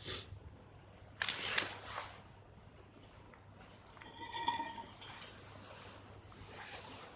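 Tableware and coffee-making gear being handled: a short hissing rush about a second in, then a brief ringing metallic clink a few seconds in.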